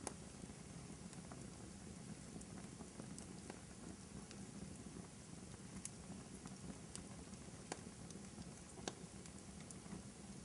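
Wood fire burning in a fireplace: a low, steady rush of flame with irregular sharp crackles and pops every second or so.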